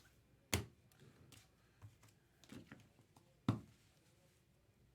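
A few sharp taps and clicks of hands handling things on a desk. The loudest come about half a second in and at about three and a half seconds, with lighter clicks between.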